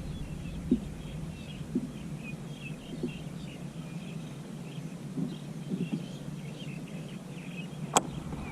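Small birds chirping in short high calls in an outdoor background, with a few soft knocks and one sharp click near the end.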